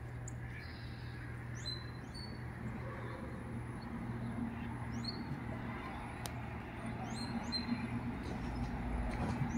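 Scattered short, high chirps of small birds over a steady low hum.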